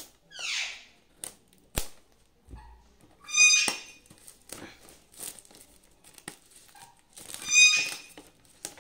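Clear plastic shrink-wrap crinkling and clicking as it is peeled off an earphone box. Two loud, high squeaks about four seconds apart stand out, with a short falling squeal near the start.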